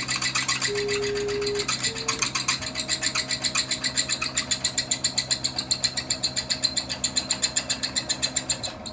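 Drill press cutting a 10 mm hole through aluminium: the spindle motor hums under a fast, even rattle. The motor driving the knee's ball screw whines in short bursts as it pecks the work up into the bit, then from about two and a half seconds in runs continuously as it feeds the work through. The sound cuts off suddenly near the end.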